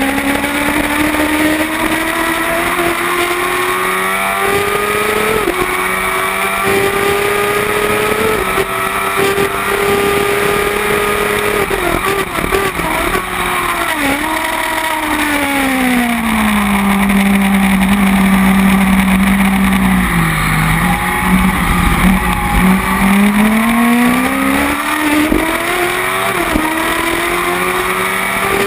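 Kawasaki ZX-10R inline-four race bike on the track, heard onboard over wind rush: the engine note climbs in steps through quick upshifts in the first twelve seconds. It then drops back through a series of downshifts, holds low and steady for several seconds, and climbs again with another upshift near the end.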